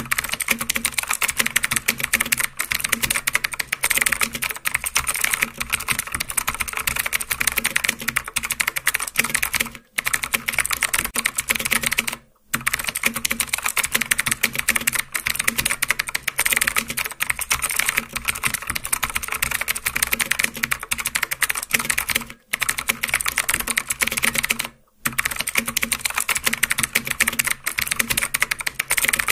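Typing sound effect: a fast, continuous stream of keyboard key clicks, broken by four short pauses, accompanying text being typed out on screen.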